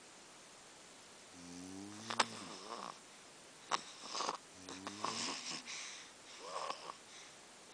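A mother and her small daughter snoring in their sleep. There are drawn-out, pitched, wavering snores about every three seconds, each followed by a rougher, hissier breath, with a couple of sharp clicks.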